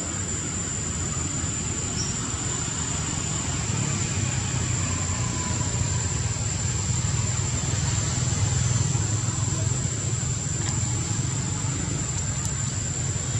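Steady outdoor background noise: a low, even rumble under a thin, steady high-pitched whine, with no distinct calls or impacts.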